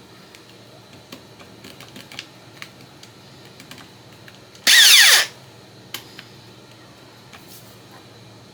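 Power drill run in one short burst of about half a second, its motor pitch falling as it spins down, drilling a pilot hole for a door hinge screw. Light clicks and taps of handling come before it, and a single click follows.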